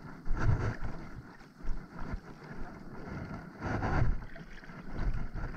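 Water sloshing around a wading angler's body, surging twice, about half a second and about four seconds in, with wind buffeting the microphone.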